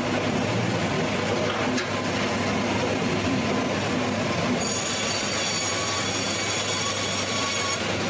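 Sawmill machinery running with a steady noise. A little past halfway, a high whine of several steady tones joins for about three seconds as the saw cuts into a log.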